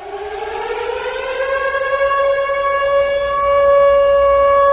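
Civil defense siren winding up as a nuclear attack warning: one tone rises in pitch and loudness over the first two seconds or so, then holds steady and loud.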